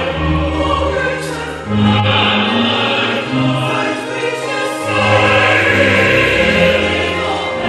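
Mixed choir singing a slow hymn in close harmony, accompanied by an electronic keyboard, on long held chords over a steady low bass that change every second or two.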